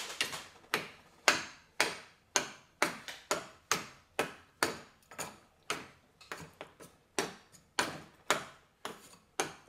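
A wooden chicken stick flicks the propeller of a single-cylinder four-stroke model aero engine with a rotary valve, giving repeated sharp clacks about twice a second. The engine turns over without firing, not even a pop. Keith Appleton blames a total lack of compression.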